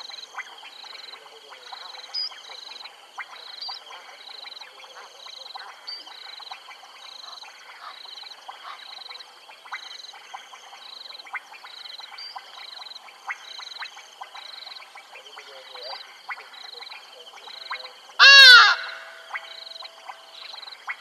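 Wetland chorus of calling frogs and insects: a high trill pulsing about one and a half times a second over a steady high hum, with many scattered clicks and chirps. About 18 seconds in, one loud, short animal call with a falling pitch stands out above the chorus.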